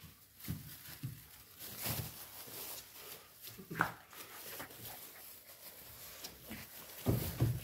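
Five-week-old golden retriever puppies scrambling about in shredded paper bedding: a busy rustle of paper and small scuffles, with a brief rising puppy squeak about four seconds in.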